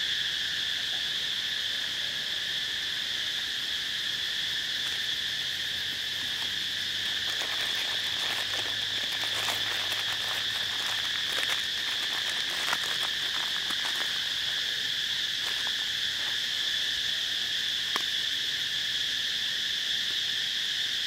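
Steady chorus of insects, an unbroken high drone at two pitches. Scattered short clicks and crackles in the middle stretch.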